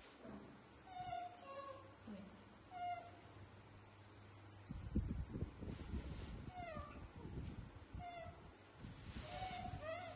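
Baby macaques giving short high coos and squeaks, a few rising sharply into shrill squeals, as they wait for fruit. Low handling noise comes in from about halfway.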